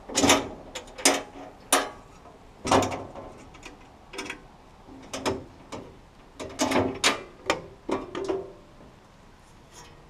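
Sharp metal clanks and clicks, about a dozen spread over eight seconds, from handling the Woodland Mills sawmill's sheet-metal blade-wheel cover and its latches as the cover is opened.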